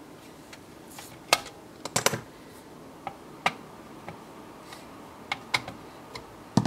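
Irregular clicks and taps of hands handling an HP T5745 thin client's sheet-metal and plastic case, with small tools being picked up and set down on the bench.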